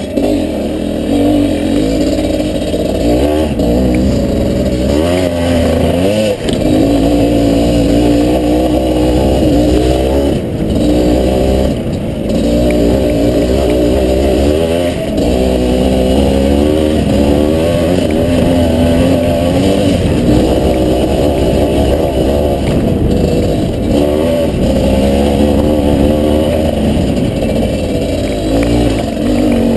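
Two-stroke dirt bike engine being revved up and down continuously under load while climbing a dirt trail, with the throttle briefly shut off twice near the middle.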